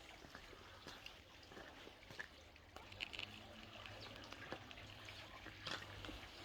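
Near silence: faint background with a low steady hum and a few small scattered clicks.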